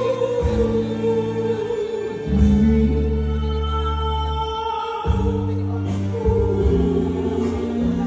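A woman singing into a microphone, holding long notes over a sustained instrumental accompaniment.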